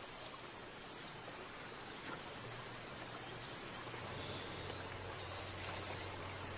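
Faint outdoor nature ambience of insects buzzing, with a regular high chirp about three times a second starting around four seconds in.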